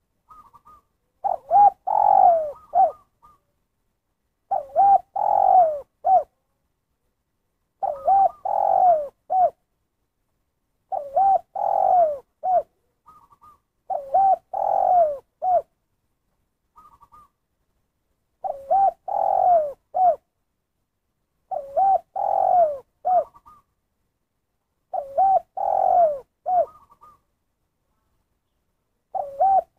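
Spotted dove (tekukur) cooing, repeating the same three-part phrase nine times, about every three seconds: a short note, a longer, louder middle coo, and a single short closing 'kuk', the 'kuk satu' call type. Faint short higher notes come between some of the phrases.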